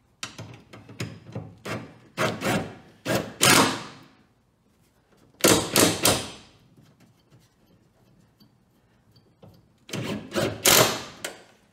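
Cordless impact driver driving bolts in four short bursts of rapid hammering, with pauses between them.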